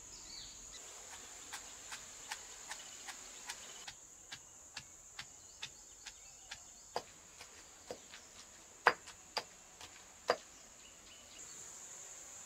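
Stone pestle pounding in a stone mortar: a regular tapping of roughly two to three strokes a second, with a few much louder knocks near the end. A steady high hum of insects runs underneath.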